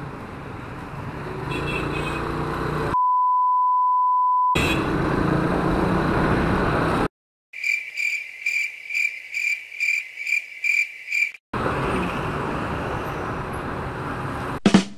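Riding noise from a Kawasaki Fury 125 motorcycle in traffic, cut about three seconds in by a steady 1 kHz censor bleep lasting about a second and a half. Midway, a rapid run of high-pitched beeping ticks, about three a second, plays for some four seconds and stops abruptly, before the riding noise resumes.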